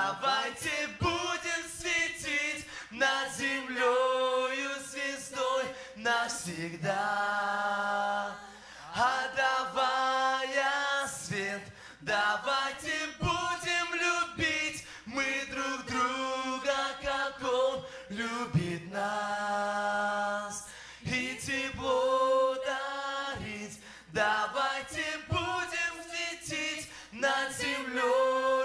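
A small mixed group of men and women singing a cappella together into microphones, in short rhythmic phrases broken by a few longer held chords.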